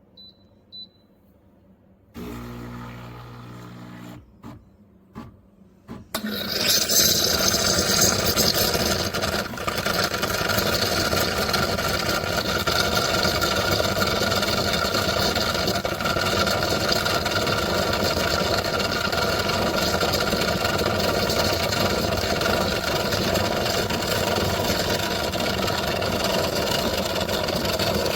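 Espresso machine running: a short humming start about two seconds in, a few clicks, then from about six seconds a loud steady rushing hiss over the pump's drone.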